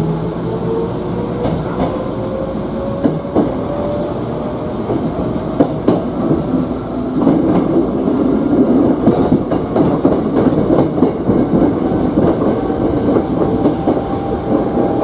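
Hankyu 8000 series electric train pulling away, heard from inside the leading car: the motor whine rises steadily in pitch as it gathers speed. From about five seconds in, the wheels clatter loudly over a run of points and crossings.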